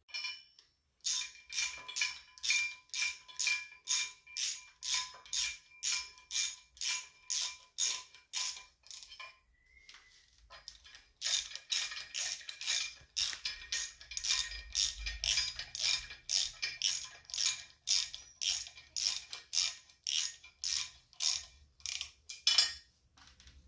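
Hand ratchet wrench clicking in steady strokes, about two bursts a second, as bolts of a Holley serpentine belt kit are run in on a 1966 Chevy Impala engine, with a short pause about ten seconds in.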